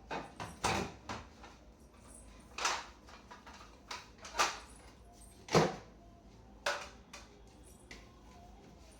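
Irregular knocks and clatters of household items and fittings being handled, about eight in all, the loudest a little past halfway.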